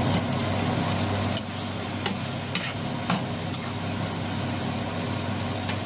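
Pork, tomatoes and shrimp paste sizzling in a nonstick frying pan as a spatula stirs them, with a few light clicks of the spatula against the pan. A steady low hum runs underneath.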